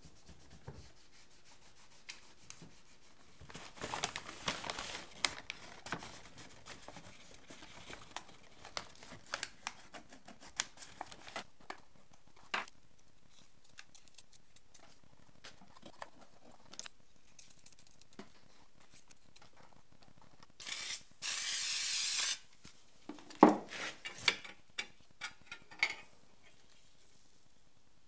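A cloth rag rubbing and wiping an electric motor's metal housing, then scattered light clicks and knocks of small metal parts and tools being handled. A hiss lasts about a second and a half about 21 seconds in, and a sharper knock follows shortly after.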